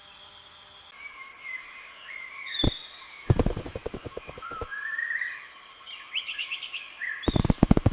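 Hummingbirds chirping and twittering in short gliding calls over a steady high-pitched insect drone. Two runs of fast clicks come about three seconds in and near the end.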